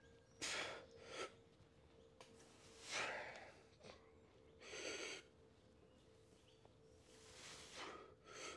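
A weightlifter's hard, sharp breaths during heavy barbell bench press reps, about six in all, a second or two apart. A faint steady hum runs underneath.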